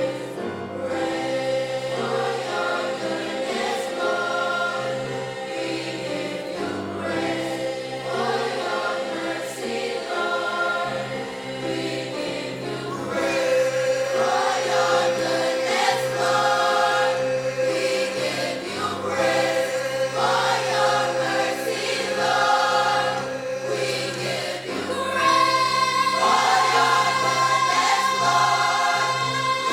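Gospel choir singing with accompaniment, swelling louder about halfway through and again near the end.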